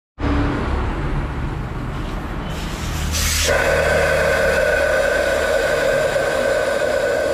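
Compressed air hissing through a tyre changer's pneumatic bead breaker as it is worked on a motorcycle wheel. A sharp burst of hiss comes about three seconds in and turns into a loud, steady whistling hiss.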